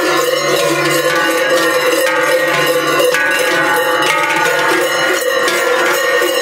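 Several large Swiss cowbells (Schellen), worn in pairs on the chest and back of Silvesterchläuse, clanging continuously together as the wearers sway. The many bells give a dense, steady ringing.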